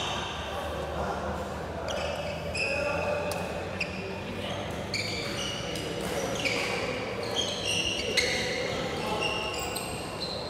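Badminton shoes squeaking on a wooden court floor, with sharp racket smacks on a shuttlecock every second or two.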